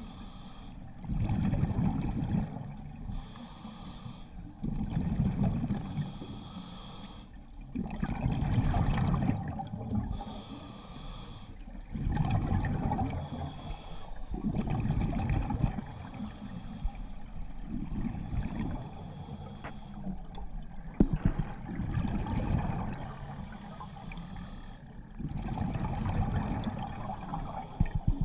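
A scuba diver breathing through a regulator underwater: a hiss on each inhale and a burst of gurgling exhaust bubbles on each exhale, about every three to four seconds. A few sharp clicks come about twenty seconds in.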